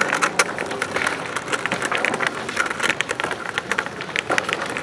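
Skateboard riding along concrete coping: a steady, gritty crackling scrape made of many small clicks, as the trucks grind and the wheels roll over rough concrete.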